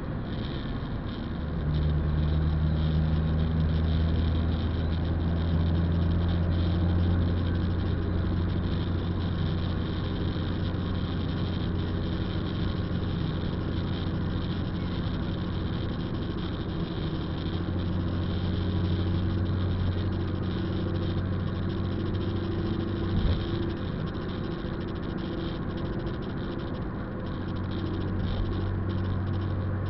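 Vehicle engine running, heard from inside the cabin as a steady low hum that grows louder about two seconds in, with one brief thump a little after twenty seconds.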